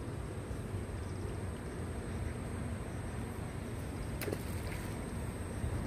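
Steady low rumble of outdoor background noise, with a faint high steady tone above it and one sharp click about four seconds in.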